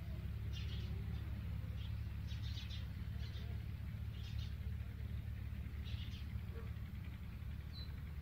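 Birds chirping: short, high chirps repeating every second or so over a steady low rumble.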